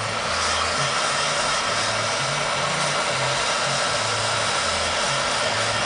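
Electric heat gun blowing steadily, a loud rush of hot air with a steady whine, held over a laptop graphics chip to reflow its solder.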